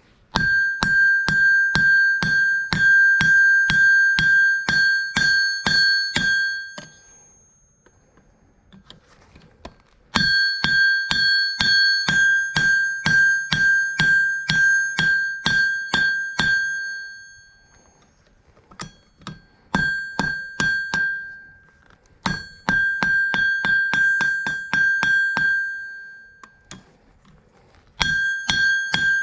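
Hammer blows on an anvil in runs of several seconds with short pauses, about two to three strikes a second, each with the same high ring. Hot steel from a carriage bolt is being forged into a miniature hatchet.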